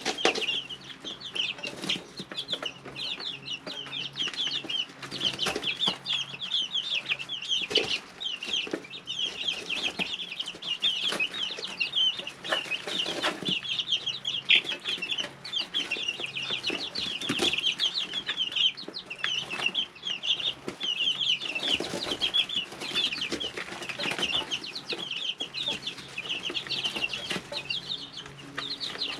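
A brood of three-week-old chicks peeping continuously, many short high chirps overlapping, with scattered light taps and a faint steady low hum underneath.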